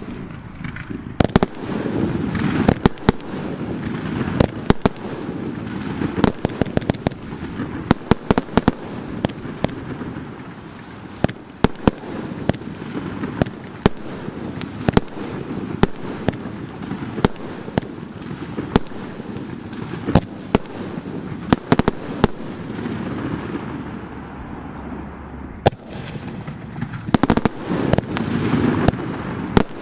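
Vivid Pyrotechnics Face Off Round 2, a 54-shot 30 mm firework cake, firing without pause: many sharp bangs over a continuous rushing noise. The volleys come thickest about two seconds in and again near the end.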